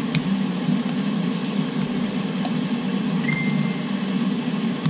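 Steady machine hum with a hiss over it, and a brief faint high tone a little past three seconds in.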